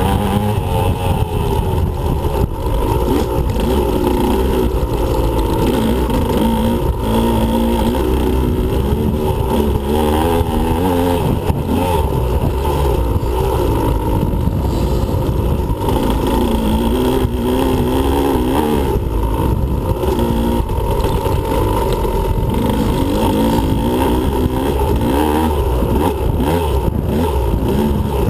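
2015 Husqvarna TE125 two-stroke dirt bike engine under riding load, its pitch rising and falling every few seconds as the throttle is opened and closed, over a steady low rumble.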